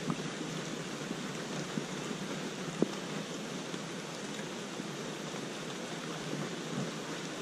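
Light rain falling on a muddy stream and the leaves around it: a steady patter, with a single louder drop tap a little before the middle.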